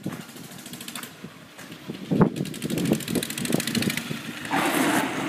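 Small engine of a vintage scooter running as it is ridden off, getting louder about two seconds in with an uneven, pulsing exhaust note.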